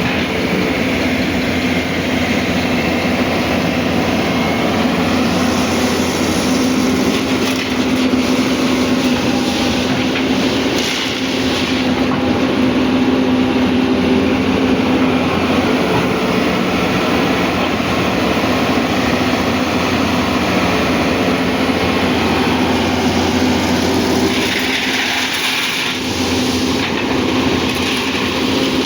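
Hyundai excavator's diesel engine running steadily with a constant hum, and a brief hiss about 25 seconds in.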